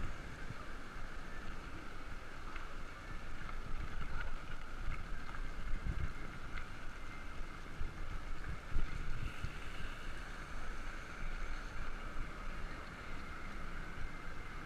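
Wind rushing over the microphone of a handlebar-mounted camera on a moving bicycle, with the tyres rolling on wet pavement. A steady low rumble and a constant hiss, with a few small ticks and rattles.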